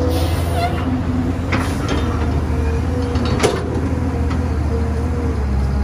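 Caterpillar 320B hydraulic excavator's diesel engine running steadily with a deep rumble, with a few sharp knocks from the bucket and soil, the loudest about three and a half seconds in.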